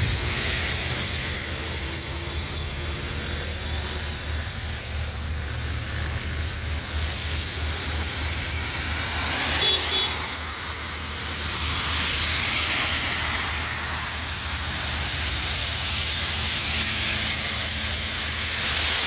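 Cars driving on a rain-soaked road, tyres hissing through the water, loudest as one car passes close about halfway through. Under it runs a steady hiss of rain and a constant low rumble.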